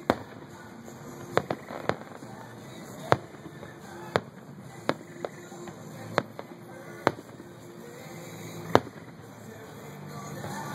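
Aerial fireworks shells bursting, about a dozen sharp bangs at uneven intervals, the loudest a couple of seconds before the end.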